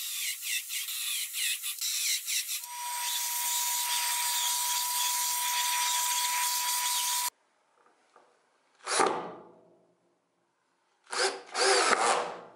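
Cordless drill driving screws into a plywood sled, pulsing in quick repeated spurts. Then a shop-vacuum hose sucks up chips with a steady hiss and a thin whistle for about four and a half seconds, cutting off abruptly. Two short drill runs follow, the second about a second long.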